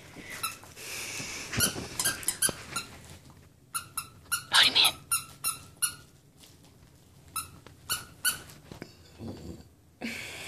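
Squeaker inside a plush dog toy squeaking as a beagle chews and shakes it, in quick runs of short squeaks with brief pauses between them.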